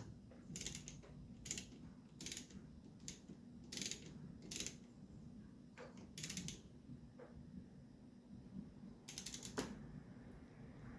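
Hand socket ratchet clicking in short bursts, about one a second, as a fastener on the motorcycle's engine is tightened, with a pause partway through.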